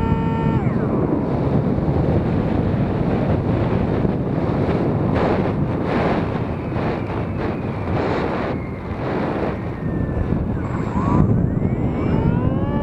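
Wind rushing over the microphone of an R/C airplane's onboard camera as the plane glides with its motor throttled back. The motor's whine drops away about half a second in, and near the end it rises again as the motor spools back up.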